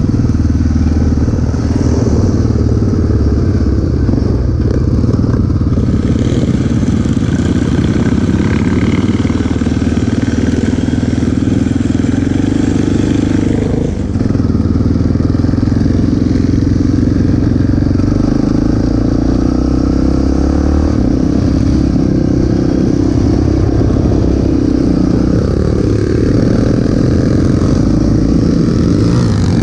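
Sport quad ATV's engine running under way on a gravel road, steady with small rises and falls in pitch as the throttle changes, and a brief dip in loudness about halfway through.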